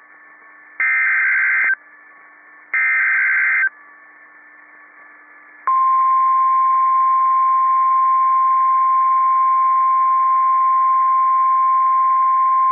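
NOAA Weather Radio Emergency Alert System alert for a tornado warning: two roughly one-second screeching SAME digital header bursts, then about 2 s after the second burst the steady 1050 Hz warning alarm tone starts and holds unbroken.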